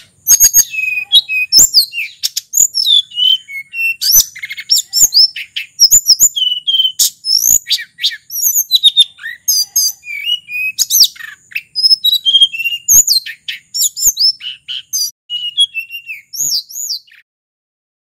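Hill blue flycatcher (sulingan gunung) singing a long, fast run of varied whistled phrases: clear notes gliding up and down, strung together with hardly a pause. The song stops about a second before the end.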